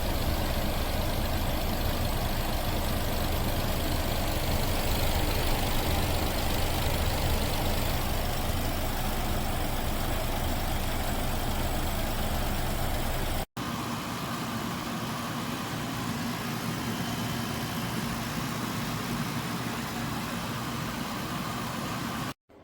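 COSTWAY 14000 BTU portable air conditioner running: steady fan airflow with a low compressor hum. The sound breaks off briefly about 13 seconds in and resumes a little quieter, with less of the low hum.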